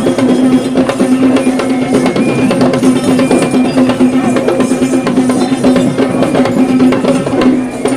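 Fast, dense drumming with many strokes, over a steady held droning note that breaks off briefly now and then.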